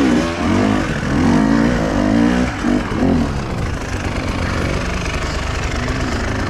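Enduro dirt bike engine revving up and down several times over the first three seconds, then running more steadily at lower revs.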